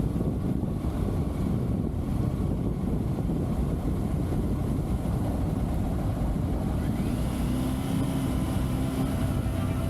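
Triumph Tiger motorcycle engine running under way, with wind rushing over the microphone; the engine's steady note stands out more clearly in the last few seconds.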